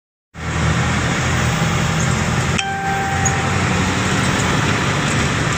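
Inside a moving truck's cab: the engine running steadily under loud road noise, cutting in abruptly a moment in, with a brief click about two and a half seconds in.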